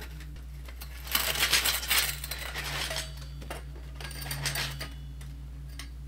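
Metal frame poles of a portable garage clinking and scraping together as a pole section is worked onto the bottom of a leg. The clatter is loudest for about two seconds starting a second in, followed by a few lighter knocks.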